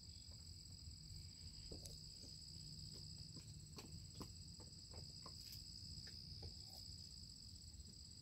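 Steady high-pitched drone of insects, with faint irregular crunches and clicks of a dog chewing a pig snout.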